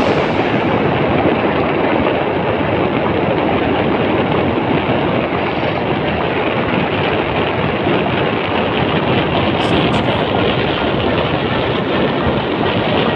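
Motorcycle being ridden at road speed: a steady run of engine and road noise mixed with wind rushing over the microphone.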